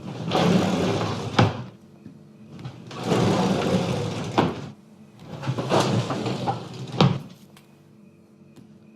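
Kitchen cupboard doors sliding and knocking shut three times: each a scraping rush of about a second and a half ending in a sharp knock. After the third, only a low steady hum remains.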